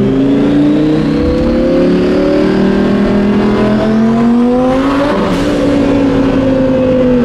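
Twin-turbocharged Lamborghini Huracán V10 accelerating hard, heard loud from inside the cabin. The engine note climbs steadily for about four seconds, with a faint high whine rising alongside it. Around five seconds in the pitch drops, and the engine runs on at a steadier pitch.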